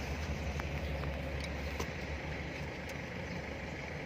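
Steady low rumble of a car engine running, with a few faint clicks.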